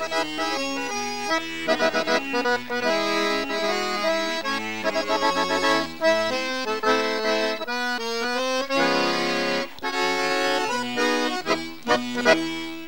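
Instrumental opening theme music with no singing, a quick run of short notes over a steady beat, winding down at the very end.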